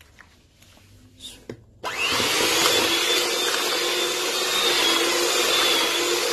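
Electric hand mixer switched on about two seconds in, then running steadily with a steady whine as its beaters cream butter and caster sugar in a plastic bowl. A few faint handling clicks come before it starts.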